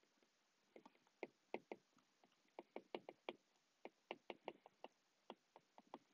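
Stylus tip tapping on an iPad's glass screen during handwriting: a quick, irregular run of faint, soft taps.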